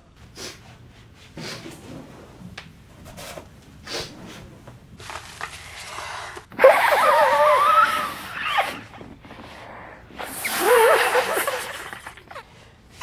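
A man sniffing sharply several times, then blowing his nose hard into a tissue in two long, noisy blows whose pitch wavers up and down.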